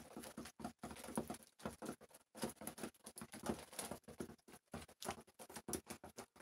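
Pigeons pecking grain off a wooden board: a quick, irregular run of faint taps.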